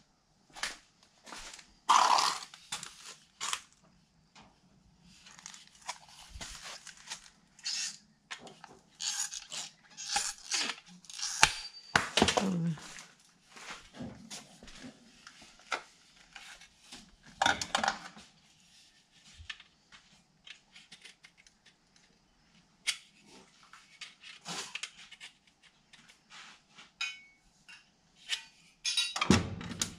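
Galvanized sheet-metal duct pieces being handled, with irregular clanks, rattles and scrapes of thin metal over a faint steady low hum.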